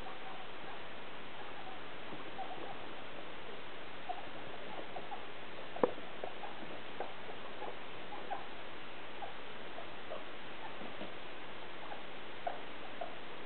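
Guinea pigs making short, soft calls scattered every second or so, with one sharp tap about six seconds in, over a steady hiss.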